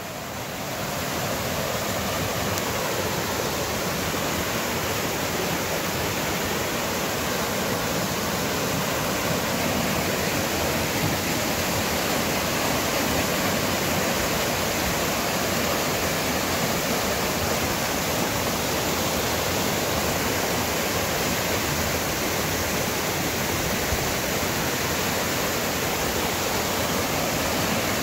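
Waterfall cascading over stepped rock ledges: a steady rush of splashing water. It grows louder over the first second or two, then holds even.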